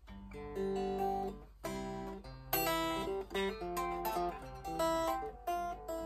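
Harley Benton Stratocaster-style kit guitar played unplugged: a quiet run of picked notes and chords, several notes ringing together, with brief breaks between phrases.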